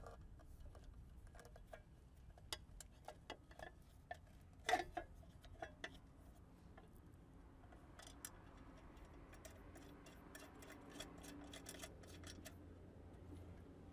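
Faint, irregular light clicks and taps of small plastic and metal parts being handled during wiring-harness installation, with one louder click about five seconds in.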